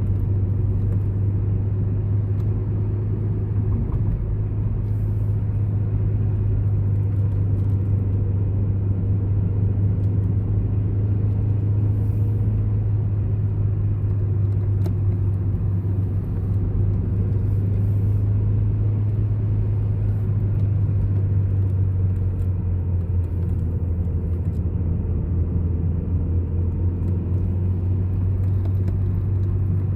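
A car driving steadily along a road, heard from inside the cabin: a constant low drone of engine and tyre noise.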